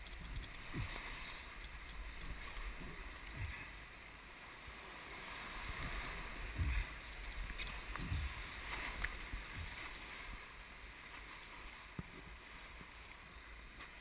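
Rushing whitewater of a river rapid around an inflatable raft, with several low thumps and splashes of water striking the raft and camera, loudest around the middle.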